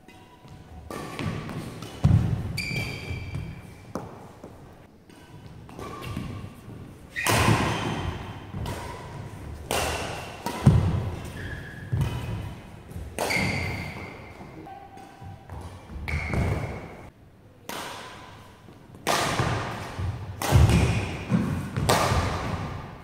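Badminton rackets striking a shuttlecock in a fast rally, with sharp hits about every second or two, mixed with footfalls and short shoe squeaks on the court mat. The hits echo around a large sports hall.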